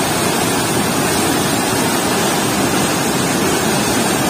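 Water rushing and churning through a weir's sluice gate: a loud, steady whitewater rush with no breaks.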